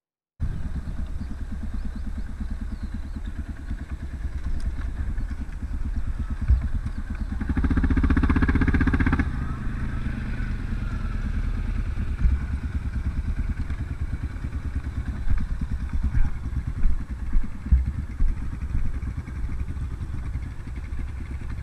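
Quad bike (ATV) engine running as it is ridden over a grassy field track. The engine opens up to a louder burst of throttle from about seven and a half to nine seconds in, then settles back.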